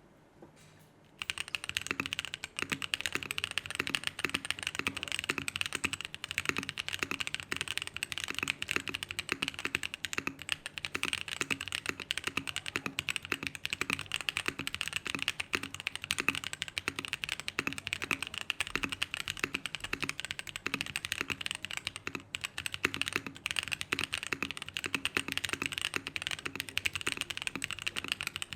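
Fast, continuous typing on a Mode Eighty mechanical keyboard with lubed Holy Panda tactile switches, an aluminium plate and 9009 keycaps. The typing starts about a second in.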